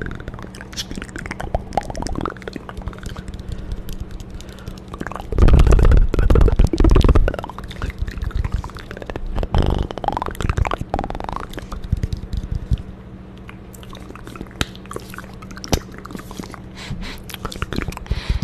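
Close-miked ASMR mouth sounds: a run of wet clicks and smacks, with a louder rumbling stretch about five seconds in and a few gliding, squelchy sounds about ten seconds in.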